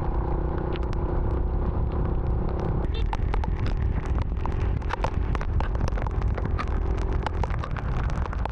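Motorcycle engine and wind rumble while riding in rain, picked up by a microphone inside the rider's helmet beside his cheek. The steady engine tone drops away about three seconds in, and from then on many sharp ticks of raindrops strike through the rumble.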